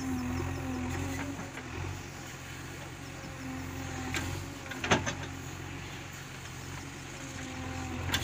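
JCB 3DX Eco backhoe loader's diesel engine running steadily as the backhoe digs into soil, with a hum that comes and goes over it. A sharp knock about five seconds in is the loudest sound, with a few lighter clicks around it.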